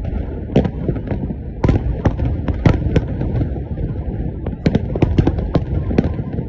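New Year fireworks display: sharp bangs at uneven intervals over a continuous low rumble of distant bursts, with several bunches of bangs, one about two-thirds of the way in.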